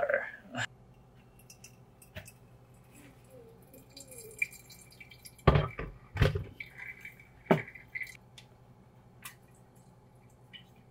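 Kitchenware being handled on a counter: scattered clicks and knocks of glass and dishes, the loudest two dull thuds about five and a half and six seconds in, over a faint steady hum.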